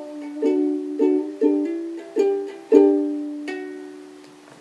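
Ukulele strumming the closing chords of a D and A7 accompaniment, several strums in the first three seconds, then a last chord left ringing and slowly dying away.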